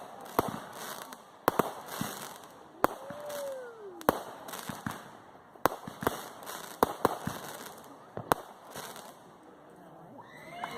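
Fireworks going off: a dozen or so sharp bangs at irregular intervals, some in quick pairs, with a low hiss between them.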